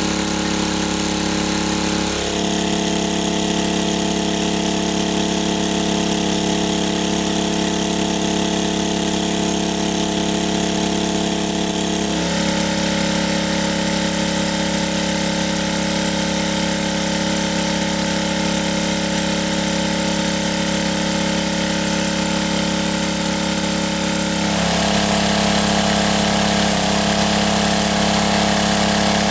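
A small engine running steadily. Its pitch changes abruptly about two seconds in, again near the middle, and again near the end.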